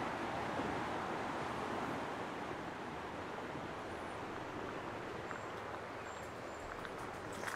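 Steady outdoor rushing noise that swells and then slowly eases, with a few faint high chirps in the second half.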